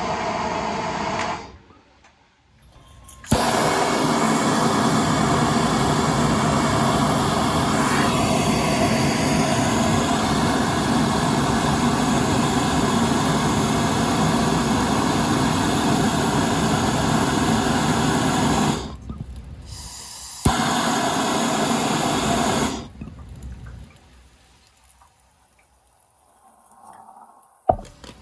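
Soldering torch lit with a sharp click and burning with a steady, loud rushing hiss while heating copper pipe for a soldered joint. It cuts off, is relit with another click a second or so later, and burns for a couple of seconds more before going out; a few small metal clinks follow near the end.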